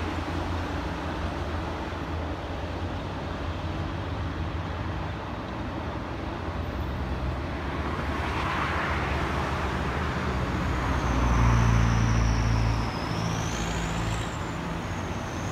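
Road traffic: a steady engine hum and tyre noise from passing vehicles, swelling as one vehicle passes close about eleven seconds in. A thin high whistle wavers up and down in pitch near the end.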